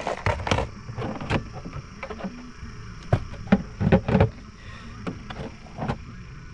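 Sharp knocks and clunks of gear being handled against a small metal boat's hull: a quick cluster at the start, scattered single knocks, a louder pair about four seconds in and one more near the end.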